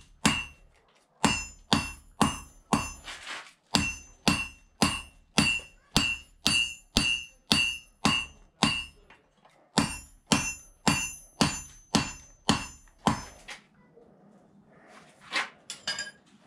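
Hand hammer forging a red-hot knife blank of bearing steel on a steel anvil: steady blows, about two a second, each with a bright metallic ring, broken by a few short pauses. The hammering stops about thirteen seconds in, and a few light metal clinks follow.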